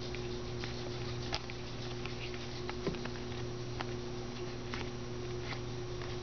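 Paper trading cards being handled and shuffled through by hand, giving scattered soft clicks and taps over a steady low electrical hum.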